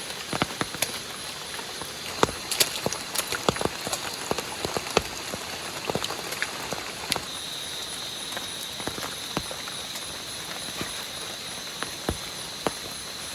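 Rain falling steadily, with irregular sharp drops knocking close by, densest in the first half. A faint, steady high tone comes in about seven seconds in.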